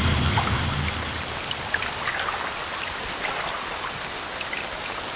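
Steady, rain-like hiss with scattered faint crackles and ticks, under an intro title. A low rumble fades out within the first second.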